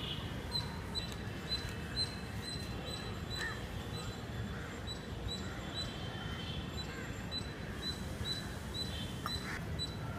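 A small bird calling: a short, high note repeated evenly, about two to three times a second, over a low steady outdoor rumble.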